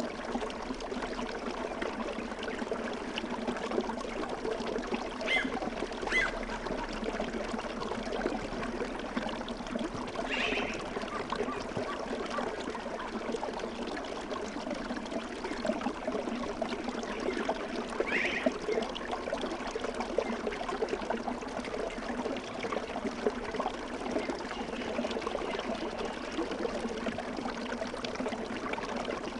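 Steady trickling, flowing water like a small stream, used as relaxing background sound. A few short, high chirps rise out of it around 5, 6, 10 and 18 seconds in.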